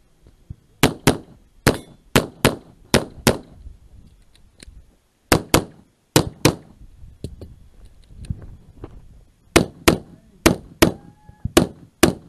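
A handgun firing in three rapid strings of sharp shots, a quarter to half a second apart: seven shots, a pause, four shots, a pause, then six more. A short ringing tone follows one of the last shots.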